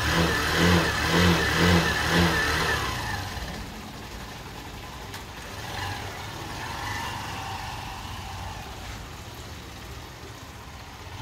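Motorcycle engine revving in a few short pulses, about two a second, then a steady rush of engine and road noise while riding.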